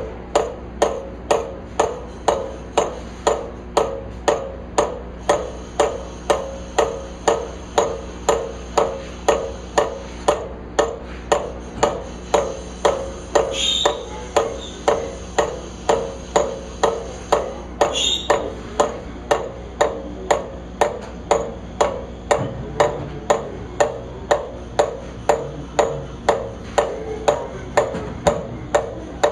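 Motorcycle spoked wheel turning in a lathe chuck, with a sharp metallic tick that rings briefly about twice a second, over the steady hum of the lathe. Two short squeaks come midway.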